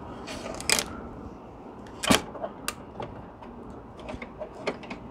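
Hard plastic clicks and knocks as orange packing pieces are worked loose from inside a new Canon printer: a few sharp clicks, the loudest about two seconds in, over a steady low hum.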